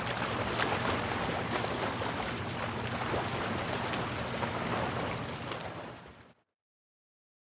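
Busy outdoor market ambience: a steady rush of background noise with scattered small clicks and knocks. It cuts off suddenly about six seconds in, leaving silence.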